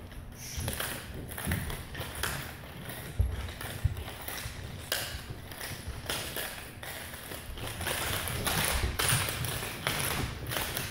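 Nunchucks swung fast through the air: a quick, uneven run of swishes, several a second, with light clicking. A couple of low thuds come about three and four seconds in.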